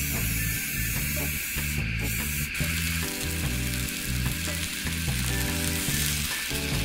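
Sausages sizzling in a small frying pan on a butane jet stove turned up a bit high, with background music underneath.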